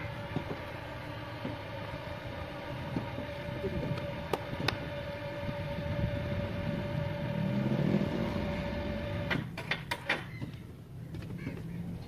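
Engine-driven machinery running with a steady whine over a low rumble; the whine cuts off suddenly about nine seconds in, followed by a quick run of clanks.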